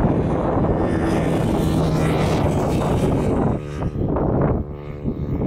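Gusty wind buffeting the microphone, over the steady low hum of an oil-well pumpjack's electric drive motor and gearbox. The machine hum comes through more plainly in two brief lulls in the wind late on.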